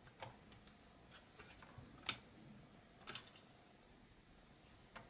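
A few faint, sharp clicks, the loudest about two seconds in and a quick pair about a second later: small parts inside a laptop being handled as the black and gray antenna wires are fitted to their connectors.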